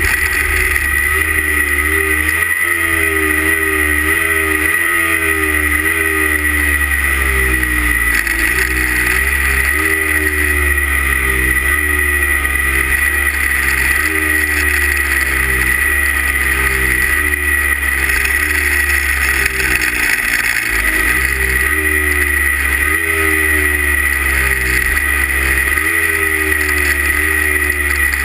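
Two-stroke 340 class snowmobile engine held at the start line, its revs rising and falling again and again, roughly every second or two, with a steady high whine over it.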